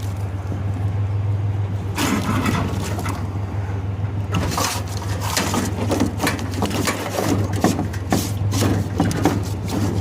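Metal shelves and screens clattering and scraping as they are shoved into a loaded truck bed, over the steady low hum of the truck's engine idling.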